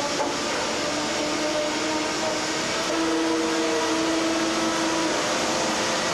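Steady machinery noise from a large SMC compression-moulding press and its shop, with a hum that wavers slightly in pitch and grows a little louder about three seconds in.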